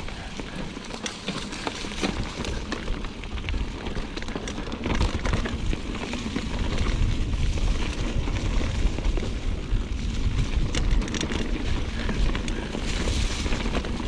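Wind buffeting a bike-mounted or helmet camera microphone over the rattle and knocks of a mountain bike rolling over a dirt trail. It grows a little louder about halfway through.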